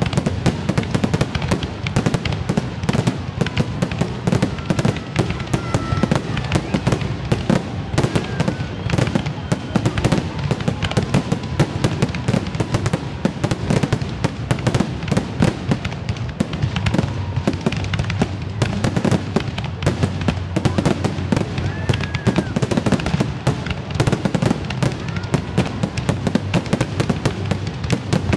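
Fireworks display going off densely and without a break: rapid, overlapping bangs and crackles.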